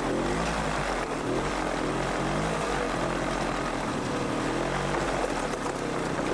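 ATV engine running under way, its pitch repeatedly rising and falling as the throttle is worked.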